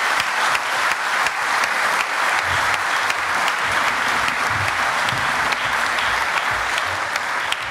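Audience applauding steadily, a dense patter of clapping with a few sharper single claps standing out.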